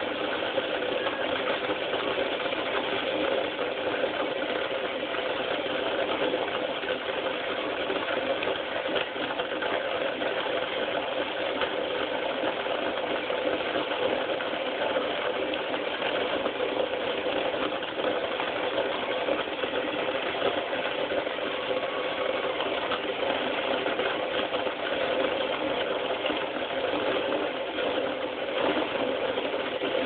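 Cordless drill driving the shaft of a manual box coffee grinder, running steadily as the burrs grind coffee beans: an even motor and grinding hum that does not change.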